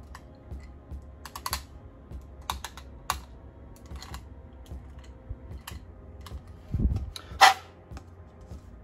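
Irregular light clicks and taps of hard plastic being handled, a funnel being worked at a fuel jug's spout, with a dull thump and then a sharp knock about seven seconds in.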